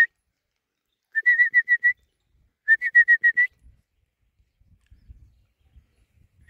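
A bird's whistled calls: two quick runs of six or seven short, high, slightly rising chirps, each run lasting under a second.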